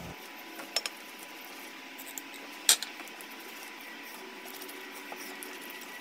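A few light clicks and knocks of a spatula against a stainless-steel saucepan while sugar is stirred into agar-agar water, the loudest a little before halfway, over a faint steady hiss.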